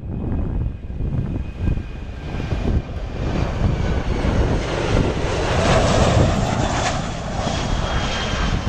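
Boeing 737-400's CFM56-3 turbofan engines on landing approach: a jet roar with a high whine that swells as the airliner passes low overhead, loudest about six seconds in.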